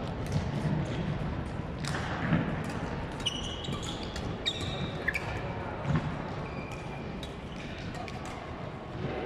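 Badminton rackets striking the shuttlecock in quick rallies, sharp clicks echoing in a large indoor sports hall. Short high squeaks from shoes on the court floor come a few seconds in, over a background of distant voices.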